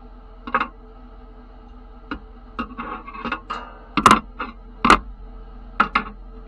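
Metal coat hooks being set down and dropped onto the perforated steel grate of a sandblasting cabinet: a string of sharp metallic clanks and clatters with a short ringing, loudest about four and five seconds in. A steady low hum runs underneath.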